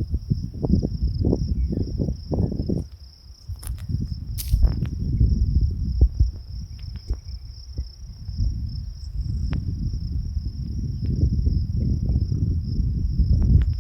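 Gusty wind buffeting the microphone in uneven low rumbling surges, over a steady high-pitched drone of insects. A few short clicks, the loudest about four and a half seconds in.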